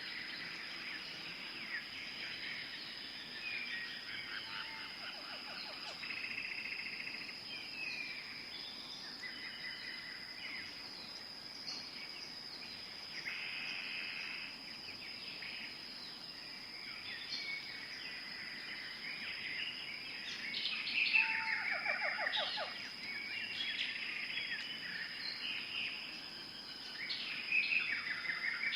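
Several small birds chirping and singing in short trills and phrases over a steady high-pitched insect drone. The birdsong grows busier and louder about two-thirds of the way through.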